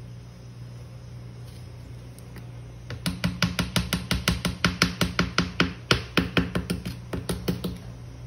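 A spoon knocking against the inside of a plastic blender jar while stirring thick flour-and-milk batter: a fast, even run of sharp taps, about five a second, starting about three seconds in and lasting nearly five seconds, over a steady low hum.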